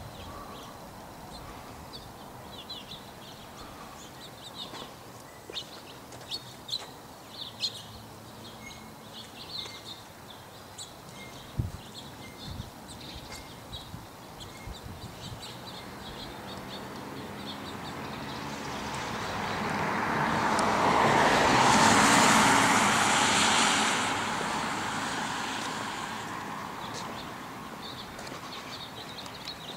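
Small birds chirping in short, scattered calls, then the noise of a passing vehicle that swells to a peak and fades away over about ten seconds, drowning out the birds at its loudest.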